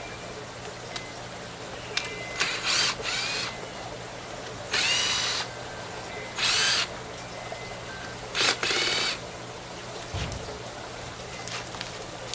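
Power drill running in five short bursts of about half a second each, its motor whine wavering in pitch as it speeds and slows. A single dull thud follows near the end.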